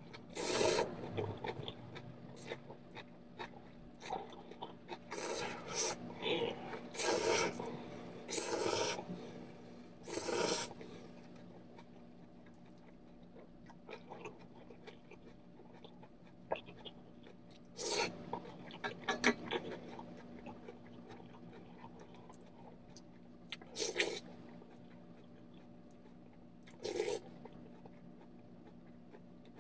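A person slurping instant ramen noodles in short noisy bursts, many in the first ten seconds and a few more spaced out later, with quieter chewing between.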